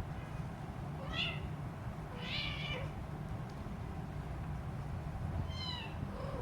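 A three-week-old Siamese kitten meowing three times in short, high-pitched cries, over a steady low hum.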